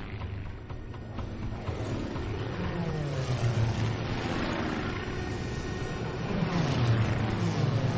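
Formation of piston-engined propeller warplanes droning overhead, with two fly-bys whose engine pitch falls as the planes pass: one a couple of seconds in and a louder one near the end.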